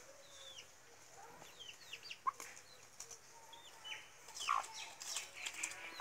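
Chicks peeping in short, high, falling cheeps, with a hen giving an occasional lower cluck; the calls come thicker about four and a half seconds in.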